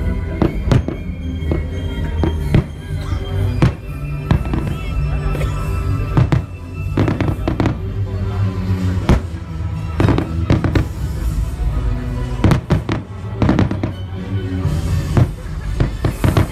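Aerial fireworks shells bursting: many sharp bangs at irregular intervals, several clustered close together in the second half. Steady background music plays underneath throughout.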